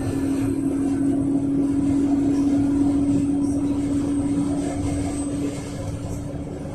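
Yutong ZK6116HG city bus, fuelled by compressed natural gas, heard from inside while under way. A steady running rumble carries a steady whine at one pitch, which fades out about five and a half seconds in.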